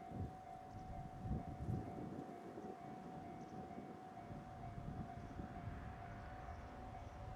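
Railway level-crossing warning bell sounding a steady high tone, over a low, uneven rumble.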